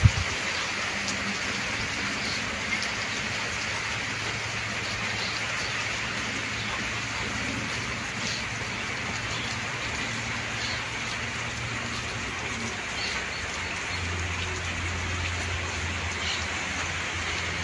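Gentle steady rain falling on open pasture, an even hiss with no letup.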